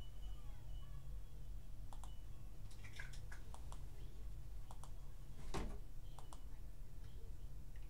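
Scattered short clicks from a computer mouse and keyboard in use, with one louder knock a little past halfway, over a steady low hum.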